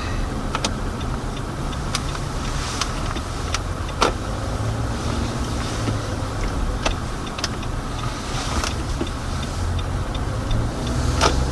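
Car running at low speed, heard from inside the cabin: a steady low engine and tyre rumble, with several sharp clicks or knocks at uneven intervals, the loudest about four seconds in and near the end.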